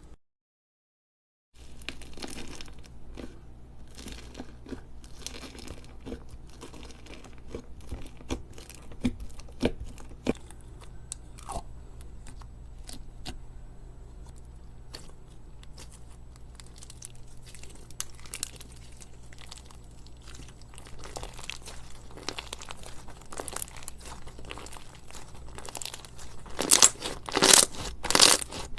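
Crunchy slime being squeezed and worked, giving many small crackles and pops. It starts after a brief silence and grows louder and denser near the end.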